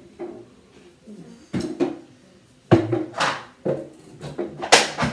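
Containers of body lotion bottles being lifted up and set down, a series of clattering knocks with the loudest near the end.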